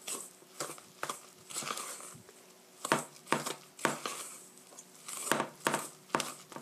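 Wooden spatula stirring and scraping a stiff flour-and-grated-apple mixture around a stainless steel mixing bowl, in quick irregular strokes.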